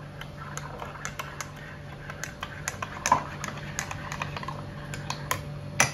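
Spoon clinking against the inside of a ceramic mug while a drink is stirred: a series of irregular light clicks, with louder knocks about three seconds in and near the end, over a steady low room hum.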